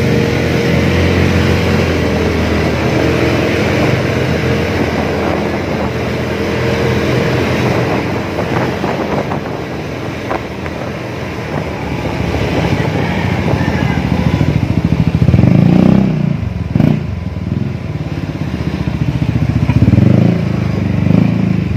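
Yamaha XMAX300 scooter's single-cylinder four-stroke engine running through a PR2 aftermarket exhaust as it is ridden along the street. The note is steady at first and eases off through the middle, then swells louder twice under throttle, once past halfway and again near the end.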